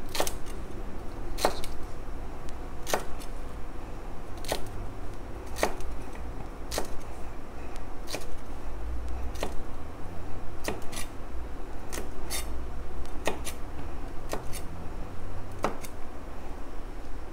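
Kitchen knife cutting yard-long beans on a plastic cutting board: sharp taps of the blade through the beans onto the board, about one a second, coming quicker in the second half.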